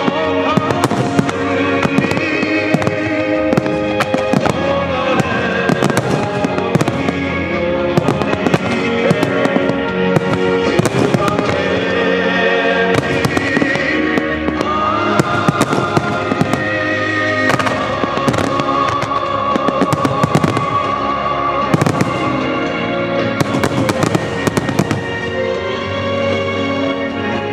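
Aerial firework shells bursting in rapid, irregular volleys during a large starmine finale, with sharp bangs and crackle heard over loud, sustained orchestral-style music.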